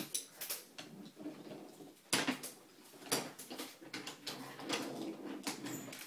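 Toy trains clacking and knocking on a wooden train track as they are pushed along by hand and set down. Irregular sharp clicks and knocks, the loudest about two seconds in.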